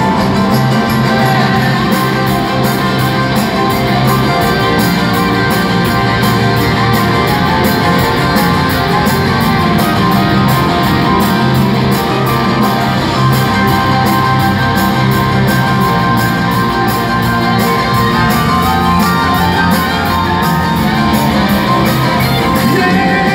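Live rock band playing loud and amplified, an instrumental passage with piano and a steady drum beat, heard from the audience.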